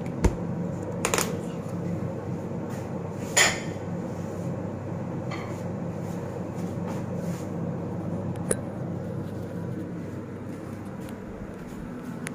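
A few short knocks and clatters of things being handled, the loudest about three and a half seconds in, over a steady low hum.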